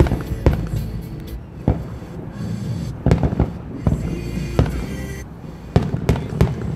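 Aerial firework shells bursting overhead in a string of about ten sharp, irregular bangs, with music playing underneath.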